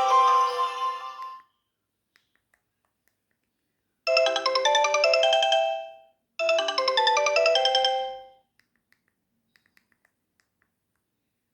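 Sony Ericsson G502 mobile phone ringtones. One melody fades out in the first second and a half. After a pause of a few seconds, a short melodic phrase of about two seconds plays twice in a row.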